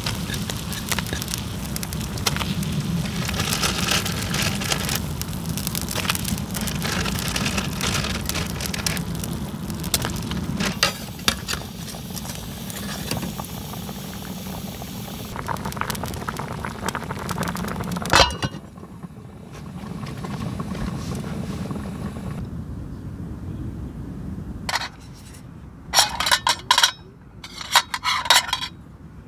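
A pot of soup boiling over a small wood-burning box stove, with the fire crackling and popping. Near the end, sharp metallic clinks as camping cookware lids and pots are handled.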